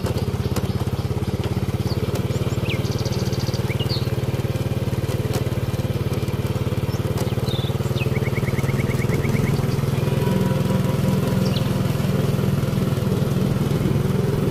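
A small engine running steadily, with a few faint high chirps over it.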